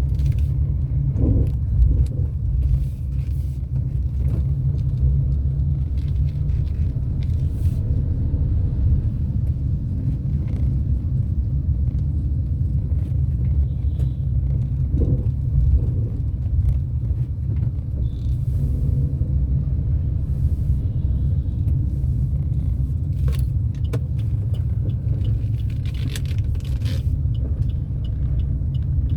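Steady low rumble of a car driving on wet roads, heard from inside the car, with scattered faint ticks and taps.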